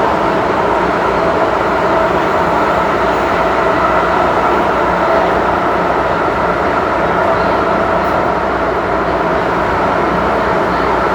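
MTR M-train electric multiple unit running at steady speed, heard from inside the car: an even rumble of wheels on rail and running noise, with a faint steady tone above it.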